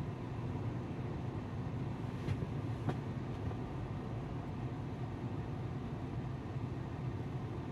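Steady low rumble of traffic and cabin hum heard from inside a car standing still, with two faint ticks about two and three seconds in.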